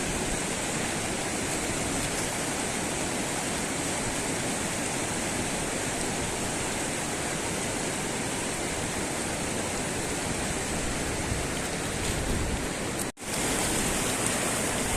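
Fast-flowing muddy river water rushing steadily. It drops out sharply for an instant about thirteen seconds in, then carries on.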